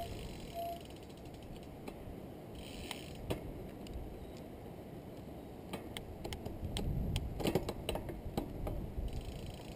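Catrike recumbent trike's drivetrain clicking as it rolls along, with spells of fast ratcheting from the rear freewheel. A low tyre-on-asphalt rumble runs underneath.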